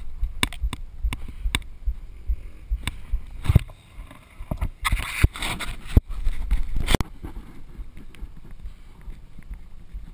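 Close handling noise from an action camera in its housing: irregular taps, knocks and rubbing as someone fiddles with the camera, heaviest in a burst of scraping and knocks about five to seven seconds in.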